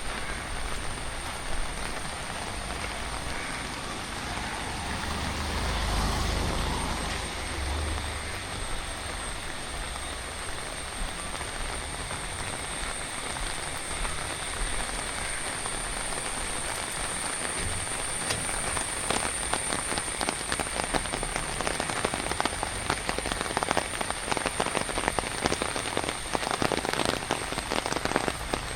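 Monsoon rain falling, its drops pattering more densely in the second half, over a steady high-pitched whine. A low rumble swells and fades about six seconds in.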